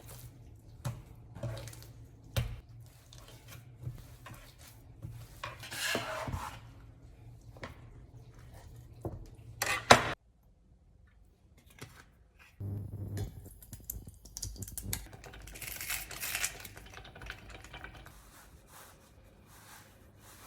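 Kitchen handling sounds of dishes and utensils: scattered clinks, taps and knocks, with one sharp loud knock just before ten seconds in, followed by about two seconds of near silence before the handling noise resumes.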